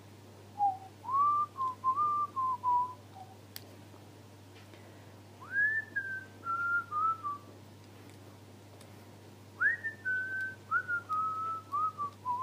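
A person whistling a tune in three short phrases, each starting with an upward slide and then stepping down in pitch through a few short notes.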